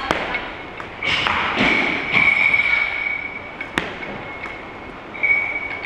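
A lifter's feet land with a thud on the lifting platform as she catches a split jerk, then a high-pitched whine comes and goes in the background. There is a sharp click a little under four seconds in.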